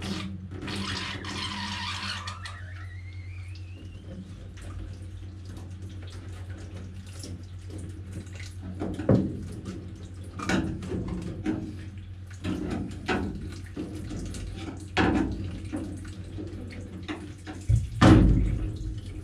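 Spanner working the nuts on a bolted round deck plate: a series of sharp metal clinks and knocks, the loudest near the end, over a steady low hum from an electric fan. About a second in there is a brief hissing rush with a rising whistle.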